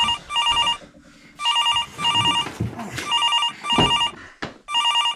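Corded telephone ringing in repeated double rings, each ring a short electronic trill, about four pairs roughly a second and a half apart. A loud thump comes just before the fourth pair.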